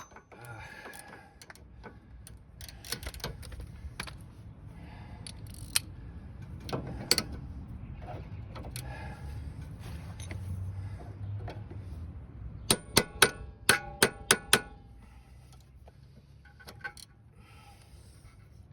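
Hand tools clinking and scraping on a rusted rear sway bar link, with scattered clicks and, about two-thirds through, a quick run of about eight ringing metal clinks.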